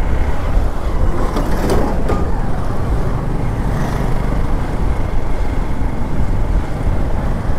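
Hero Xpulse 200 4V motorcycle being ridden along a rough dirt road, heard from an on-board camera: the engine runs steadily under a dense, low rumble of wind and road noise.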